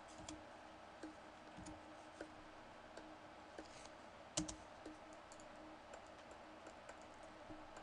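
Faint, scattered clicks of a computer mouse and keyboard during editing, with one louder double click about four and a half seconds in, over a faint steady hum.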